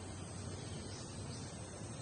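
Steady outdoor background noise, strongest low down, with faint insect chirping above it.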